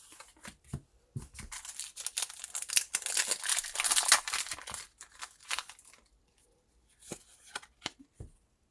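Foil wrapper of a Pokémon TCG Fusion Strike booster pack being torn open and crinkled, a dense crackle lasting about five seconds, followed by a few soft clicks of the cards being handled near the end.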